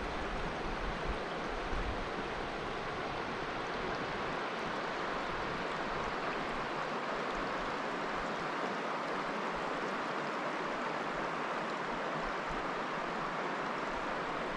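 Steady rush of flowing river water below a waterfall, an even hiss that holds at one level throughout, with a few low rumbles in the first couple of seconds.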